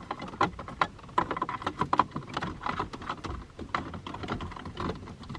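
Quick, irregular small plastic clicks and rattles as USB cable leads and their plugs are pushed down through the dashboard trim into the ashtray compartment.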